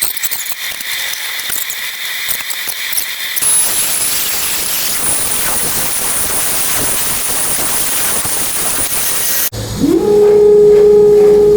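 Workshop machine noise cut together in short pieces: a steady hiss with a faint high whine, then near the end a CNC router motor spinning up to a steady hum, the loudest part, and beginning to wind down.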